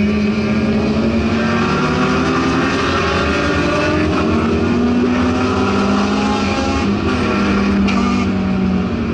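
Subaru WRX STI race car's engine under hard acceleration, heard from inside the cabin, its pitch climbing as speed builds, with a short change about four seconds in.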